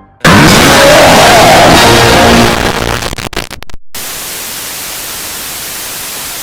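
A sudden, very loud burst of harsh noise cuts in. After about two and a half seconds it breaks up into crackles and clicks, cuts out for a moment, then settles into a steady static hiss.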